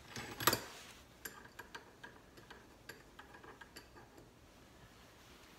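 Small metal-on-metal work at a bench vise: one sharp metal clack about half a second in, then light, irregular metal ticks as a Teflon-taped air fitting is turned into a quarter-inch ball valve clamped in the vise.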